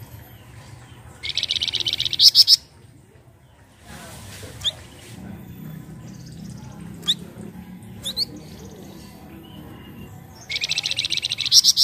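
Flamboyan, a small brown babbler, calling in two rapid rattling trills of fast repeated high notes, each about a second and a half long, one about a second in and one near the end, with a few single short sharp notes between.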